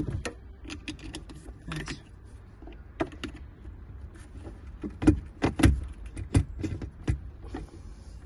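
Plastic and metal battery terminal clamps and cable connectors clicking and knocking as they are handled and pushed onto a van battery's posts. The clicks come irregularly, loudest and thickest about five to seven seconds in.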